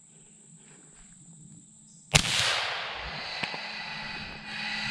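A single gunshot about two seconds in, after faint outdoor background. It is followed by a few seconds of loud, steady noise.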